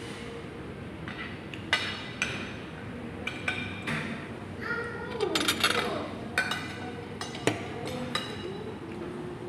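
Cutlery and dishes clinking during a meal: a series of sharp, ringing clinks, busiest around the middle.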